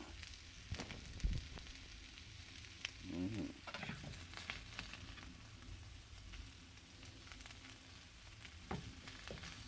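Pork and peppers frying in a pan with a steady sizzle, as the food is stirred with a utensil that scrapes and knocks against the pan several times. The food is catching and sticking on the pan.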